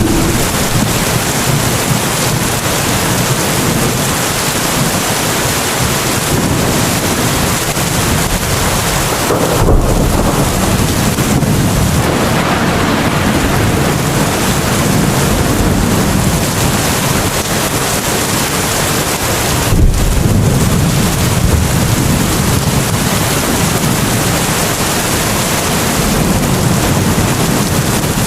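Heavy rain falling steadily, a loud dense hiss with low rumbling swells underneath. The hiss briefly drops out about ten and twenty seconds in, each time followed by a low thump.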